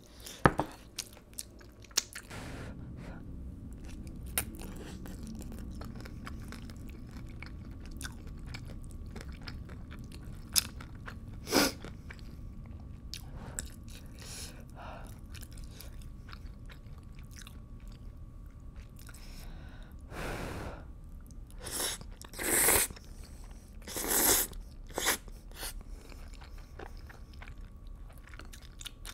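Close-miked eating of spicy rice cakes and noodles: steady chewing and biting, with sharp clicks of metal chopsticks in the first seconds. A few louder, longer eating noises come about two-thirds of the way in, over a low steady hum.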